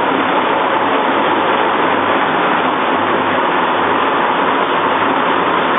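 Automatic tissue rolling machine line running, with rolls moving along its conveyor: a steady, even mechanical noise with a faint low hum underneath.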